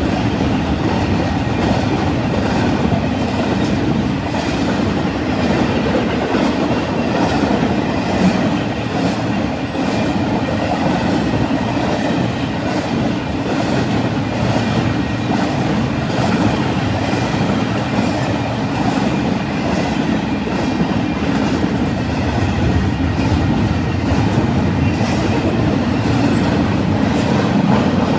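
Double-stack intermodal freight train cars rolling past: a steady rumble of steel wheels on the rails with a faint repeated clatter.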